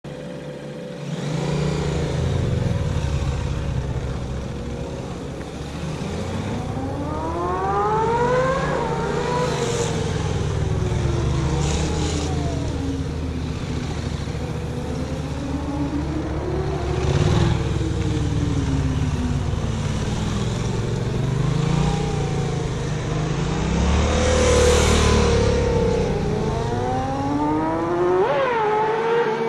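Motorcycle engine revving up and dropping back again and again, its pitch rising and falling every few seconds as the bike accelerates out of and slows into tight turns around cones.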